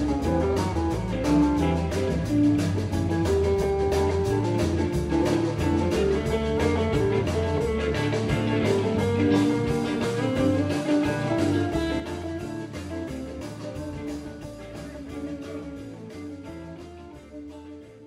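A rock band playing live: electric guitars and bass over a drum kit. The music fades away over the last third.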